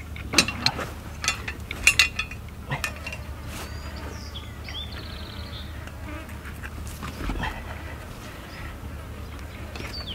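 Flies buzzing close by around a freshly gutted carcass, with a few sharp clicks and knocks in the first three seconds from the hands-on work, over a steady low hum.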